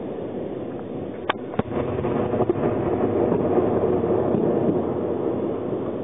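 Continuous rumble of distant rocket and artillery fire from a Grad multiple rocket launcher salvo and return fire. Two sharp cracks come close together about a second and a half in, with a few fainter ones just after.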